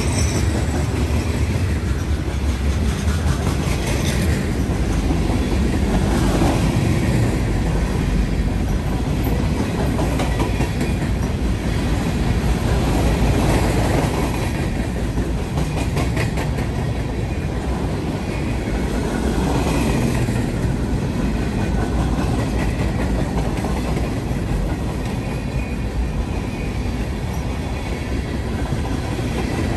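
Freight train of covered hoppers and tank cars rolling past close by: a steady rumble of steel wheels on rail, with a run of rapid clicking from the wheels over the rail joints midway through.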